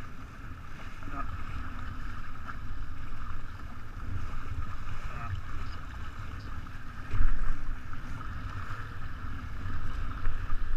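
Wind buffeting the microphone and water rushing along the hull of a 49er skiff under sail, with a louder buffet about seven seconds in.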